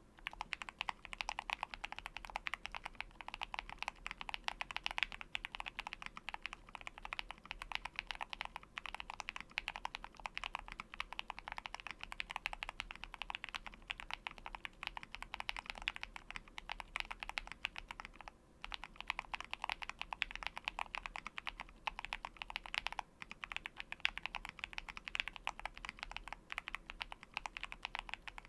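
Continuous fast typing on a KBDfans Tiger80 lite mechanical keyboard with lubed Dangkeebs Lychee Milk tactile switches and PBT Cherry-profile keycaps: a dense stream of crisp keystroke clicks, with short breaks about 18 and 23 seconds in.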